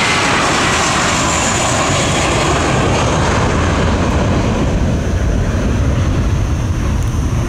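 Airbus A321 jet airliner's twin engines at takeoff thrust as it lifts off and climbs away: a loud, steady jet noise with a deep rumble underneath.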